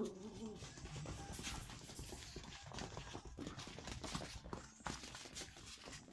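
Toy poodle puppies at play: claws clicking and scrabbling on a wooden floor and blankets as they tussle, with a brief puppy vocal sound right at the start.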